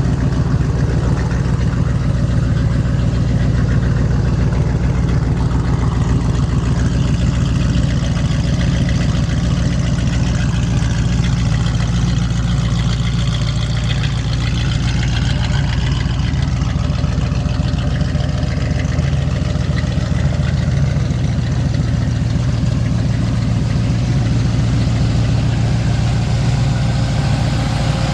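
Ford 351 Cleveland Cobra Jet V8 in a 1969 Mustang Fastback idling steadily.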